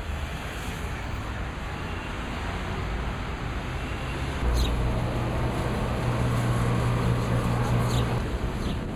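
Street traffic noise with a motor vehicle's low engine hum growing louder partway through, plus a few short sharp clicks.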